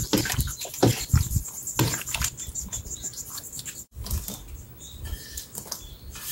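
A metal ladle stirs water kimchi brine in a stainless steel basin, sloshing the liquid with light clinks, for about the first two seconds. After that come soft scattered patters as sliced green onions drop into the liquid.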